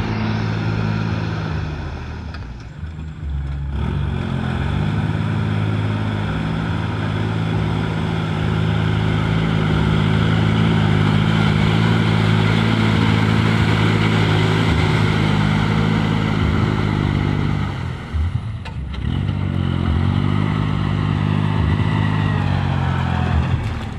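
Old engine running steadily. Its speed drops and picks back up twice, once a couple of seconds in and again near the end.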